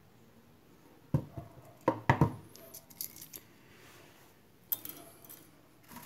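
Handling knocks of an electric motor's laminated steel stator being set upright on a wooden stand on a workbench. A few sharp knocks come in the first half, smaller clicks follow, and a lighter click comes near the end.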